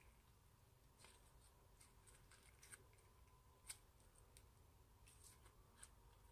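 Clear glitter slime being squeezed and kneaded by hand, giving off faint sticky clicks and pops as it folds and air pockets burst, the sharpest pop a little past halfway.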